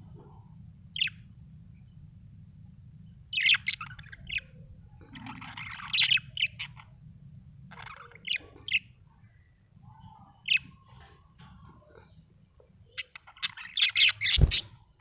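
Budgerigar chirping in short, separate bursts of high chirps, with a busier run of chirps near the end. A faint steady low hum lies underneath, and there is a single thump just before the end.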